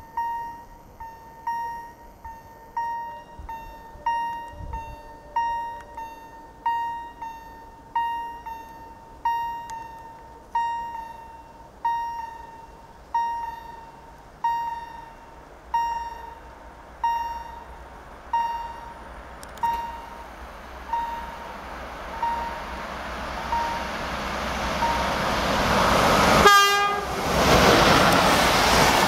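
A crossing warning bell dings steadily about once every second and a bit, with each ding ringing out. Under it, the rushing rumble of an approaching train builds over the last ten seconds and covers the bell. About 26 seconds in, a sharp loud burst comes as the EP07 electric locomotive and its InterCity coaches rush past close by.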